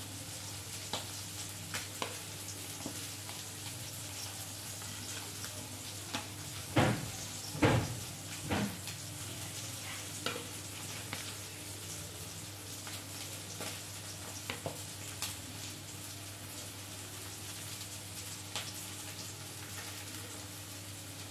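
Masala-coated anjal (seer fish) steaks shallow-frying in oil: a steady sizzle dotted with small crackles over a low steady hum, with three louder clatters about seven to nine seconds in.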